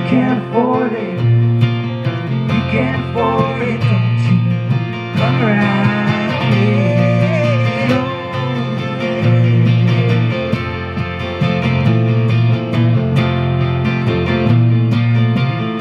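Live guitar duo playing: acoustic guitar and electric guitar together, with a wavering melody line over the chords for about the first half.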